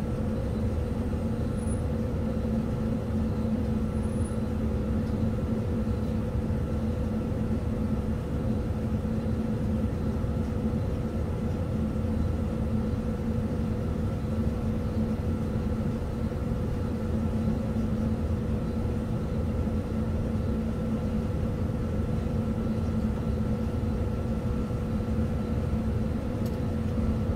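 Steady running hum inside the cab of an EF63 electric locomotive as it rolls slowly: a low drone with a few held tones that do not change. A couple of faint clicks come near the end.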